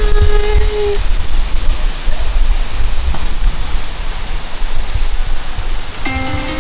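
Wind buffeting a handheld camera's microphone: a loud, uneven rushing noise, heaviest at the bottom.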